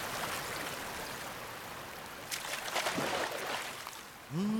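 Shallow mountain stream rushing over rocks, with a few splashes of feet wading through the water around the middle. A rising tone comes in just before the end.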